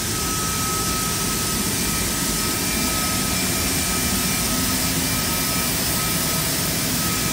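Steady jet-turbine noise on an airport ramp, with a constant high-pitched whine running through it.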